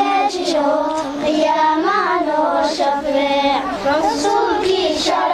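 Young girls singing a Somali buraanbur, a sung praise poem for the Prophet's birthday, their voices together on one sweeping melody.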